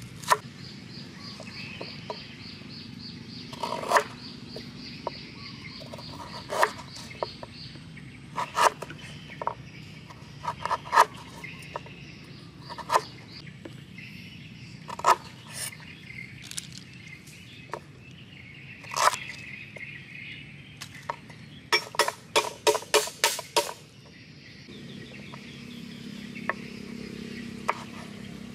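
Cleaver chopping on a wooden cutting board: scattered single chops through scallions, galangal and chilies, with a quick run of about eight chops about two-thirds of the way through.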